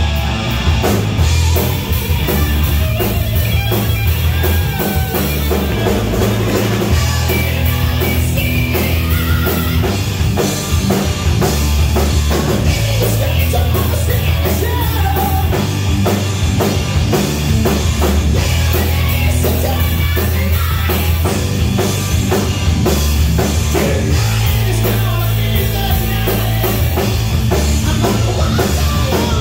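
Live rock band playing loudly: electric guitar, electric bass guitar and a drum kit, with a steady driving beat.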